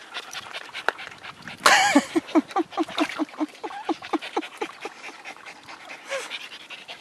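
Small curly-coated dog whining once, loudly, about two seconds in, then huffing and whimpering in short rhythmic grunts, about six a second, as she pushes her head into a water trough after stones, with faint splashing and clicks throughout.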